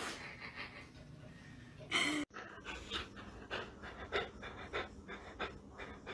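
A dog's short cry about two seconds in. Then a Rottweiler panting in quick, soft breaths, about three a second.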